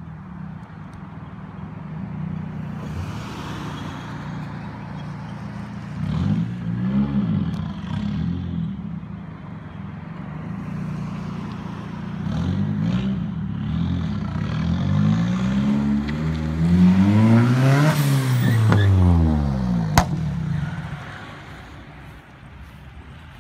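Nissan 240SX's turbocharged SR20DET four-cylinder revving up and down several times while driving, then accelerating hard past, its pitch climbing and then dropping as it goes by about eighteen seconds in. A single sharp crack about twenty seconds in, then the engine fades away.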